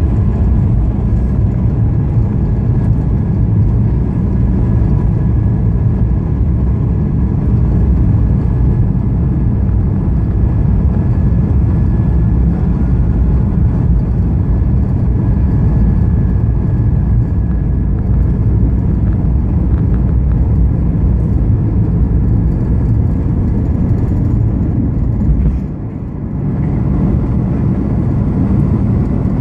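Steady airliner cabin noise inside an Airbus A220-300 in flight: the low rush of its Pratt & Whitney PW1500G geared turbofans and airflow over the fuselage, with a faint steady whine. The sound briefly dips and muffles about 26 seconds in.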